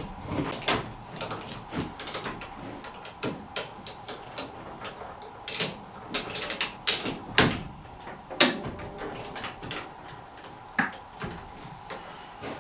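Irregular knocks, clicks and clanks of heavy metal truck-axle parts being handled and set down, with the sharpest clanks about seven and eight and a half seconds in.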